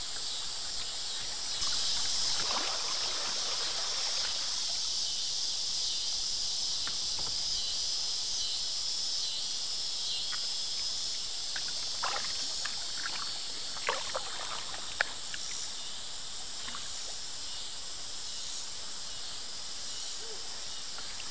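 A sit-on-top kayak moving down a river: a steady rush and hiss of water, louder for a few seconds near the start, with scattered small paddle splashes and drips.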